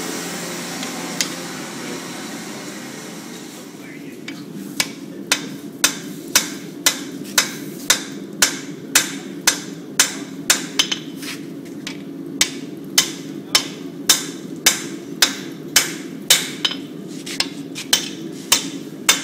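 Hand hammer striking red-hot steel on an anvil in a steady rhythm of about two blows a second, starting about four seconds in. Each blow rings briefly. A steady low hum runs underneath.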